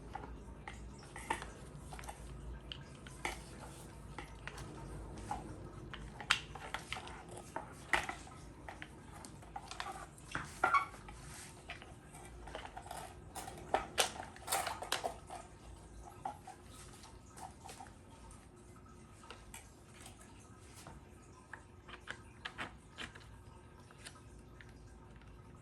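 Irregular light clicks, knocks and clatter of hard objects being handled, thickest in the first half and thinning out later.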